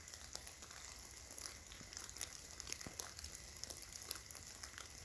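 Faint, irregular crackling: scattered small clicks and ticks over a low steady hum.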